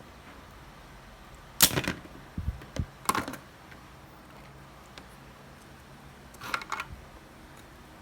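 Several short clatters and knocks of hard objects being handled: a sharp clack with a couple of dull thumps about two seconds in, another clatter soon after, and a last rattle about six and a half seconds in.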